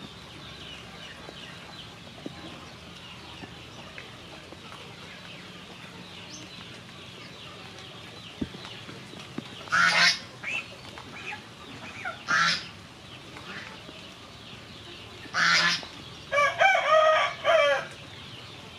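Farmyard fowl calling: a few loud short calls from about halfway through, then a longer pitched call broken into several pieces near the end.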